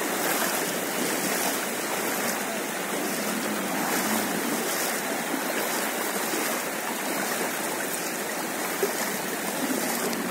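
Floodwater rushing over a road in a strong current, a steady unbroken rushing: a canal and paddy fields have overflowed onto the road.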